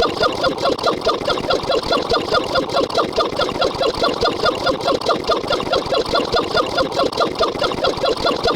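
Sped-up computer voice rattling off numbers, its syllables running together into an even stream of about four or five short pitched blips a second.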